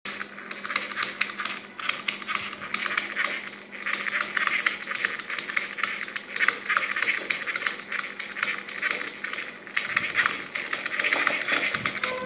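Small gear motor of a homemade self-balancing robot whirring and chattering in rapid, uneven bursts as it drives the wheels back and forth to keep the robot upright, easing off briefly a few times.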